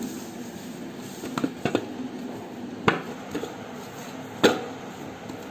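Soft dough being kneaded by hand in a stainless steel bowl: quiet handling with a few short knocks of the bowl, two louder ones about three seconds and four and a half seconds in.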